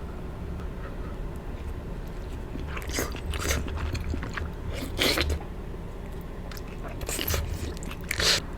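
Close-miked mouth sounds of eating soup dumplings: bites and chewing in short separate bursts, the first about three seconds in.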